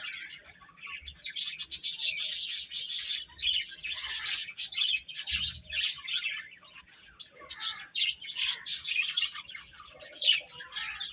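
A group of baby chicks chirping: many rapid, high-pitched peeps overlapping, densest about two to three seconds in.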